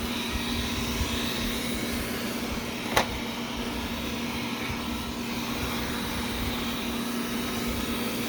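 Robot vacuum running with a steady motor hum and brush noise, with one sharp click about three seconds in.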